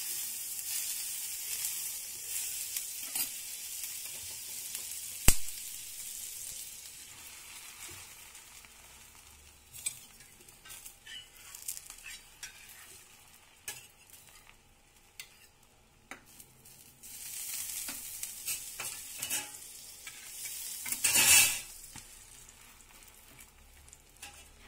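Butter sizzling and frying on a hot dosa griddle (tawa) as it is spread with a spoon, then bread sandwiches laid on to toast, with scattered scrapes and taps of the utensils. A sharp tap about five seconds in is the loudest sound; the sizzling dies down midway and comes back stronger for a moment near the end.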